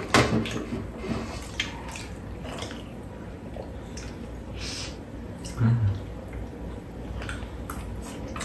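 Wet chewing and lip-smacking of people eating sandwiches, with scattered small clicks. A brief low vocal sound comes about two-thirds of the way through.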